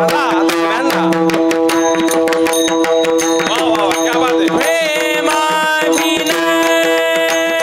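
Marathi devotional abhang singing: a high male voice bending and sliding through ornamented phrases over a steady held drone, with pakhawaj drum strokes keeping a dense rhythm.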